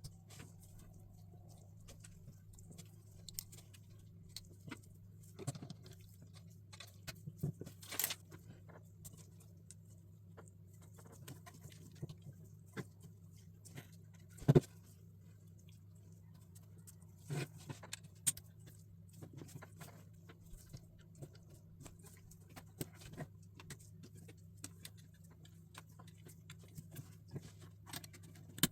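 LEGO pieces being handled and pressed together: irregular small plastic clicks and taps, with one louder knock about halfway through, over a steady low electrical hum.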